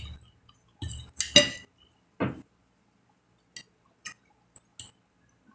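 Metal fork clinking and scraping against a clear glass plate while food is picked up, several sharp clinks, the loudest a little over a second in, then a few faint ticks.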